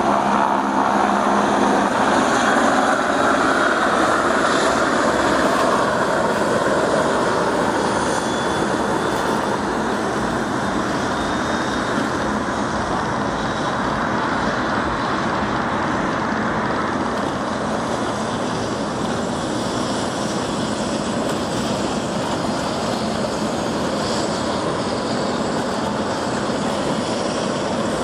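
Helicopters at a heliport making a steady turbine and rotor noise, a little louder in the first few seconds before settling.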